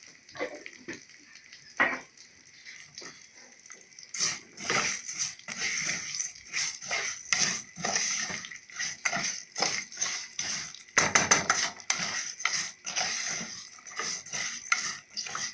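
Spoon stirring and scraping vermicelli in a cooking pot, with a few scattered clinks at first and then rapid, continuous scraping and clinking strokes from about four seconds in, as the vermicelli is toasted in oil and ghee.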